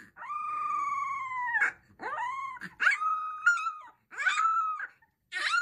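Young puppy howling: one long held howl, then four shorter howls that rise and fall in pitch.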